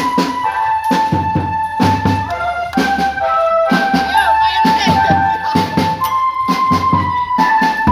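Ronda sahur patrol band music: a portable electronic keyboard plays a melody on a flute-like voice, over drums beating a dense rhythm.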